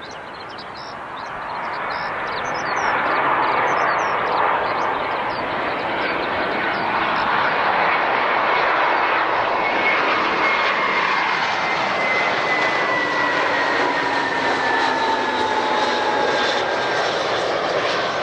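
Jet airliner engines running loud. The roar swells over the first few seconds and holds, with a thin whine that slowly falls in pitch in the second half.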